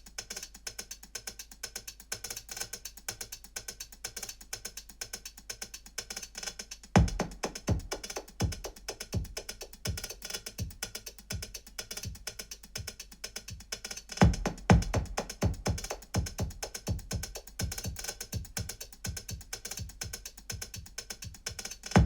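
A song's instrumental intro played on a DOOGEHiFi HT-1 tower speaker: a fast, steady ticking beat, joined about seven seconds in by deep bass drum hits.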